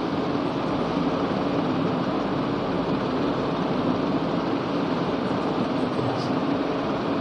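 Steady, fairly loud room noise with a low hum, like a running fan. A faint marker stroke squeaks on the whiteboard about six seconds in.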